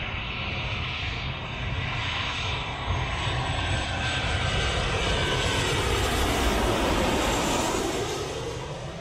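Twin-engine jet airliner passing low on landing approach: its engine noise builds to a peak about seven seconds in, with a whine that falls in pitch as it goes by, then begins to fade.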